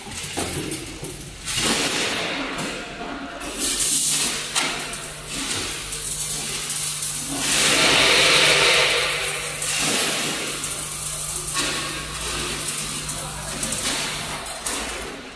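Automatic screw bagging machine running: a steady low motor hum under irregular mechanical clicks and knocks, with a loud hiss lasting about two seconds near the middle.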